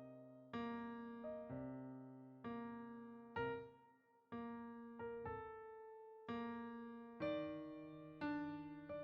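Background piano music: slow, gently sustained chords, a new chord struck about every second and left to fade.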